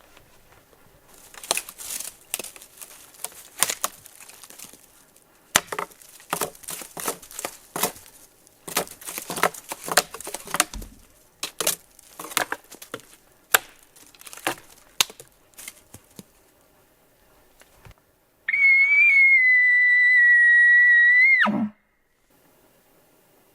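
Crackling, irregular steps and rustling through dry brush, then one loud elk bugle near the end: a high whistling note held about three seconds that drops sharply into a low grunt as it stops.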